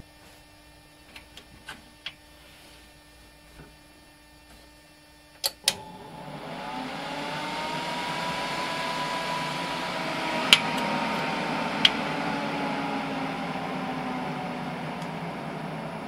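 Air-cooled desktop PC powering on: two clicks, then the case fans spin up into a steady whoosh with a whine that rises over a couple of seconds and then slowly falls as they settle. Two sharp ticks come midway through the fan noise.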